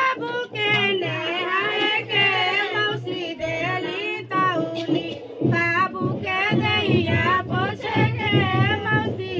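High women's voices singing a folk wedding song for the groom's ritual bath, its verses about giving him scented soap and a towel, with a steady low beat pulsing underneath.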